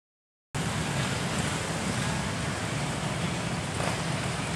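Steady outdoor noise of wind on the camcorder microphone with a low rumble, cutting in suddenly about half a second in.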